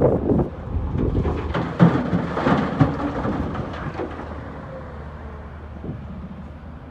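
Shale dropping from an excavator bucket into a dump truck bed: a run of clattering rock impacts with a heavy rumble, loudest about two to three seconds in, then dying away to a steady low engine rumble.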